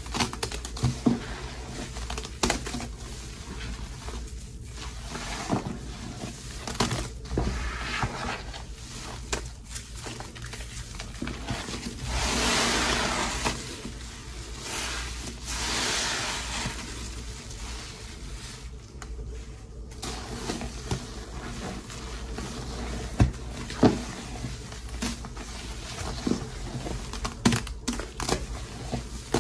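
Thick, fluffy dish soap paste squelching and crackling as a sponge is pressed and squeezed through it, with many short pops and clicks. Two longer hissing squeezes come in the middle.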